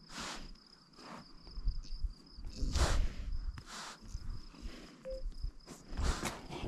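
A sleeping calf breathing with odd, loud, noisy breaths that come in pairs every few seconds, over the steady high chirring of crickets.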